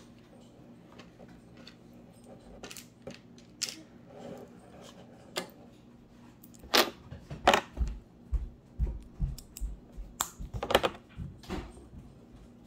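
Plastic Lego bricks clicking and rattling as they are handled and snapped together: a scatter of small sharp clicks, sparse at first and coming thickest in the second half, with a few dull knocks.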